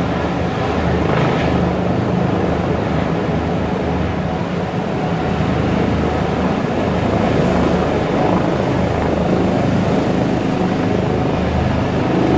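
Intensive-care transport rescue helicopter lifting off and climbing away: a loud, steady rotor and turbine-engine noise.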